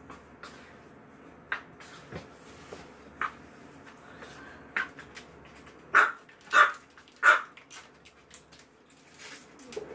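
Small white dog barking: three loud barks in quick succession about six seconds in, after a few fainter short sounds earlier.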